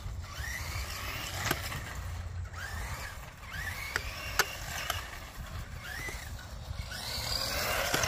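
Electric motor of a vintage Monogram Tornado RC buggy whining up and falling back in pitch again and again as the throttle is pulsed through the turns, with a few sharp clicks and a low steady rumble underneath.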